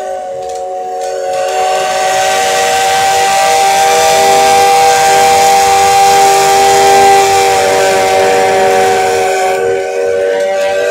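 C56 steam locomotive's whistle blowing one long, steady note with several pitches sounding together. A loud hiss of steam joins it about a second and a half in and drops away near the end.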